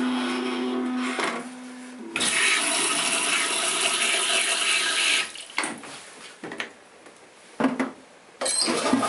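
Electronic bidet toilet flushing. Water runs with a steady hum for the first two seconds, then rushes loudly for about three seconds. After a quieter spell with a few knocks as the seat lid is lowered, the water rushes again near the end.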